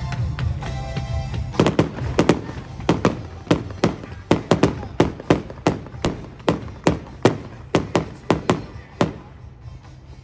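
Fireworks going off in a rapid run of sharp bangs, about three a second, starting a second and a half in and stopping about a second before the end. Background music plays underneath.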